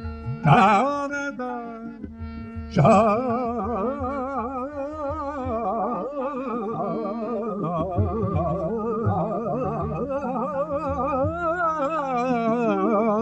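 Indian devotional song to Saraswati: a melodic line of held notes with vibrato over a steady drone, with fresh notes struck about half a second and about three seconds in.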